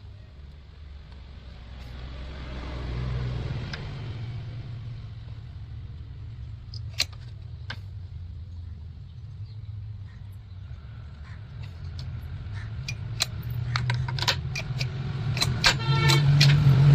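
EP-1000 portable generator's engine running after the new starter rope is fitted, with scattered metallic clicks and clinks. The running grows louder towards the end.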